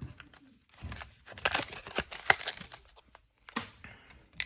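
Foil wrapper of a Pokémon booster pack crinkling and tearing as it is handled and ripped open, in quick crackly strokes that bunch up between about one and two and a half seconds in.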